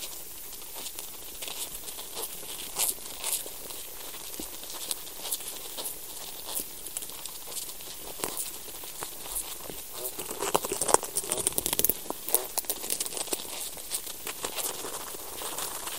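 Soil recorded from below ground: a faint hiss with scattered small clicks, crackles and scratches from the life and processes in the soil, thickening into a denser burst of crackling about ten to twelve seconds in.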